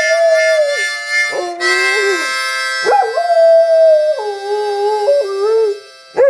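A dog howling along to music: long howls that slide and waver in pitch over steadily held instrument chords. The howling and the music stop shortly before the end, and one short, sharp sound follows.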